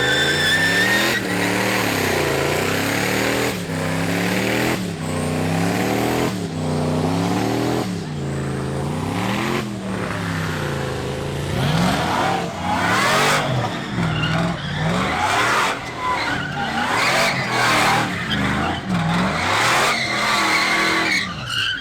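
A truck's engine revved hard up and down again and again while the tyres spin and squeal in a burnout. About twelve seconds in the revs turn more ragged and the tyre squeal gets louder.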